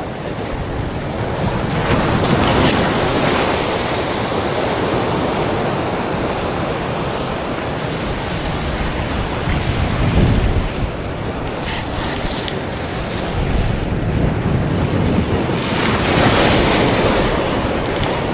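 Ocean surf washing in and breaking over a lava-rock shoreline, close by. The wash swells loudest a few seconds in, around the middle, and again near the end.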